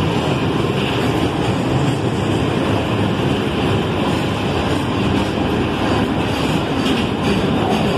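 Freight train hopper wagons rolling past close by: a loud, steady noise of steel wheels running on the rails.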